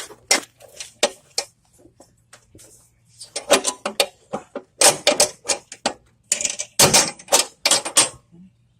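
Irregular metallic clinks and clanks of hand tools and mower deck parts being handled and fitted, coming in clusters.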